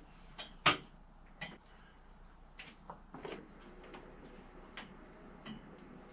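A few scattered light knocks and clicks of small parts or tools being handled on a workbench, the sharpest one under a second in.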